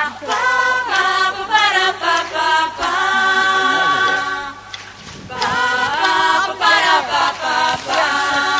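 A group of voices singing together in sustained, held notes, with a short break about halfway through.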